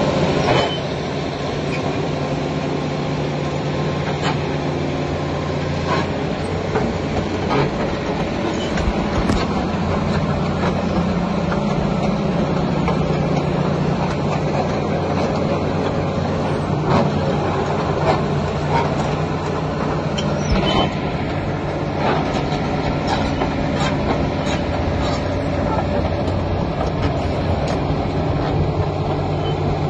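A large Komatsu PC400LC crawler excavator's diesel engine running steadily while its steel tracks clank and squeak as it travels, with scattered sharp clanks from the track links.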